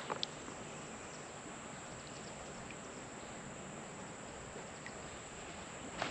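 Quiet, steady creek ambience: an even hiss of flowing stream water under a constant high-pitched insect drone, with a couple of faint clicks right at the start.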